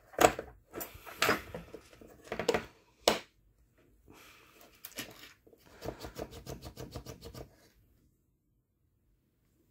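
Parts of an airsoft electric gun's gearbox clicking and knocking as the cylinder assembly is fitted into the metal shell half by hand: a few sharp knocks in the first three seconds, then a quick run of small clicks, about eight a second, lasting nearly two seconds.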